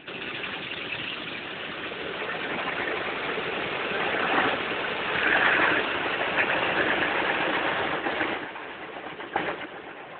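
Automatic car wash working over the car, heard from inside the cabin: a steady rushing noise that starts suddenly, swells in the middle and dies away about eight seconds in.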